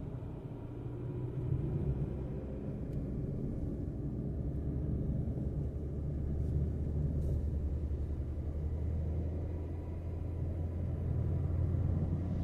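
Road noise from a car driving: a steady low rumble that grows somewhat stronger a few seconds in.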